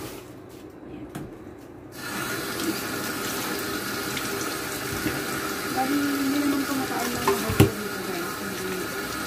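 Kitchen tap turned on, water running steadily into the sink from about two seconds in, with a sharp click near the end.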